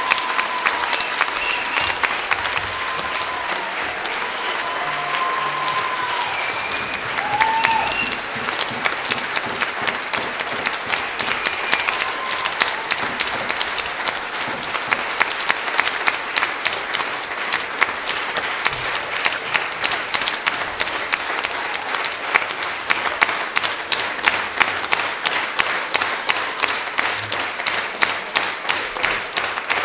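A large audience applauding. In the first several seconds there are high whoops or whistles over the clapping, and in the second half the clapping falls into a steady rhythm in unison.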